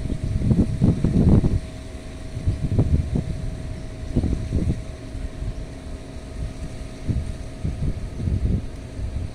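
Wind buffeting the microphone in irregular low gusts, heaviest in the first second and a half, then coming and going over a faint steady hum.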